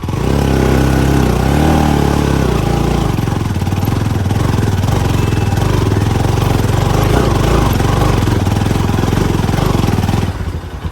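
Motorcycle engine revving up and held at high revs for about ten seconds, then easing off near the end, as the bike strains to climb a muddy slope it is failing to get up.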